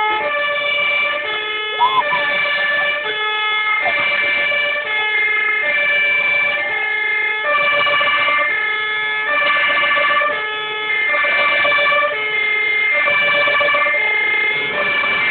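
A tune of held, siren-like tones stepping from note to note every half second to a second, several notes at once, with no speech over it.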